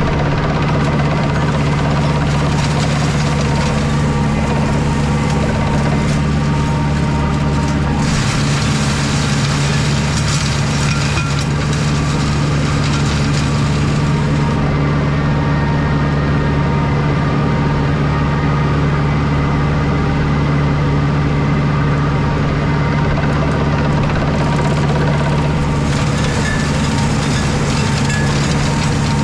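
Compact tractor engine running steadily under heavy load while its mulcher shreds dense, long-established bramble thickets. Harsher shredding noise rises from about eight to fourteen seconds in and again near the end, as thicker growth goes into the rotor.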